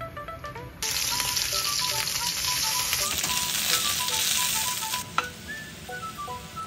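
Chicken thigh frying skin-side down in hot olive oil in a frying pan, sizzling loudly from about a second in until about five seconds in, with a jump in the sizzle partway through.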